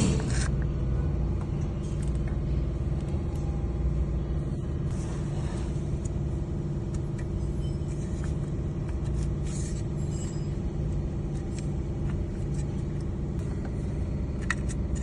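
GMC Sierra pickup engine idling steadily.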